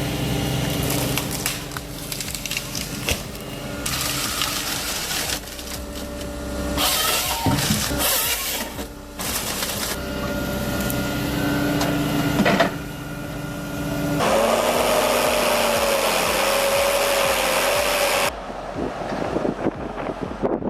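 Forestry harvester machinery running: a steady engine hum, cut into several short clips whose sound changes abruptly every few seconds. A wavering higher tone rises and falls for a few seconds in the second half.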